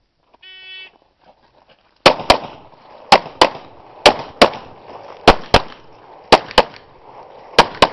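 A shot timer beeps once, then about a second and a half later a 9mm Glock 17 pistol fires six quick pairs of shots, the pairs about a second apart, each shot followed by a short echo.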